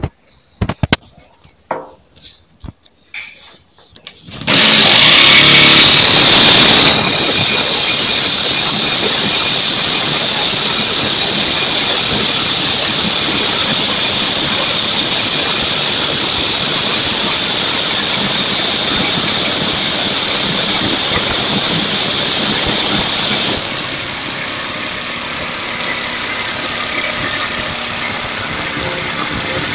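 Jigsaw cutting 6 mm steel plate. A few knocks at first, then about four seconds in the saw starts and runs loud and steady, a harsh high rasp of blade on steel. Near the end the sound shifts higher.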